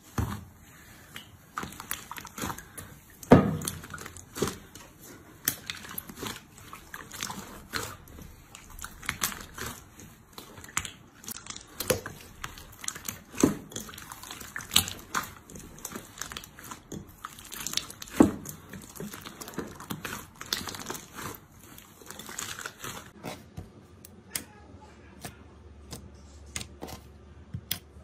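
Clear orange slime mixed with white fluffy slime being squeezed and kneaded by hand, with irregular wet sticky clicks and pops, a few of them louder.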